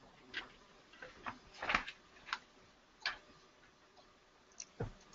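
Faint, irregular clicks and light knocks, about eight in all, the loudest a little under two seconds in: handling noise from a desk and computer on an open webinar microphone line.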